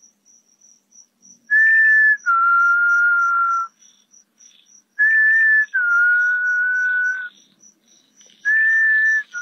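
A loud, clear two-note whistle: a short higher note stepping down to a longer, lower held note, repeated three times about three and a half seconds apart. Under it runs a faint, high insect chirp about three times a second.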